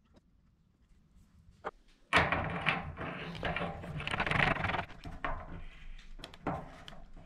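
Hands fitting a rubber seal into a brass pipe coupling and screwing it onto a water heater's brass connection, close to the microphone: rustling and small metallic clicks, loudest from about two seconds in to about five seconds, then a few scattered clicks.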